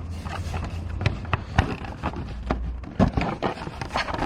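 Plastic side-mirror parts being handled and pushed into place, giving irregular sharp clicks and knocks over a steady low hum.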